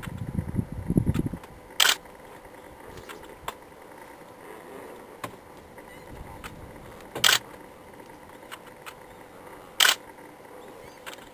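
Three sharp camera clicks, a few seconds apart, over faint steady hiss. A low rumble dies away in the first second.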